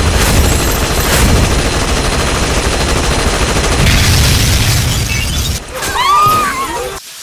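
Heavy, continuous gunfire and blasts making a dense din, easing off about five and a half seconds in; a few whistling glides rise and fall near the end before the sound cuts off suddenly.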